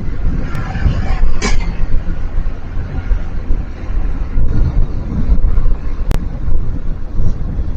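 Wind buffeting an outdoor microphone: a loud, gusty low rumble that swells and dips. A brief sharp hiss comes about a second and a half in, and a short click about six seconds in.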